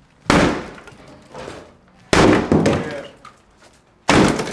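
Sledgehammer striking a wood-framed wall with broken drywall still on it: three heavy blows about two seconds apart, each a sharp crack with a brief crunching tail.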